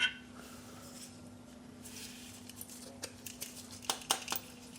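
Metal hand tools clinking and tapping during bolt removal. A short ringing clank at the start, then quiet, then a few light clicks and taps about three to four seconds in, over a steady low hum.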